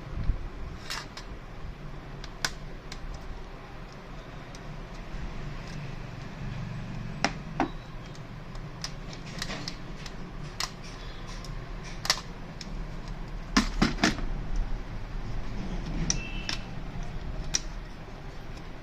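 Scattered sharp clicks and taps of plastic and metal printer parts being handled while a gear and its rod are worked loose, a cluster of them about two-thirds of the way through, over a steady low hum.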